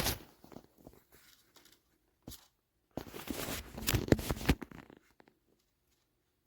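Close-up handling noises from hands working with small plastic parts. A brief rustle at the start, one click a little over two seconds in, then a rustling scrape with several sharp clicks lasting about a second and a half.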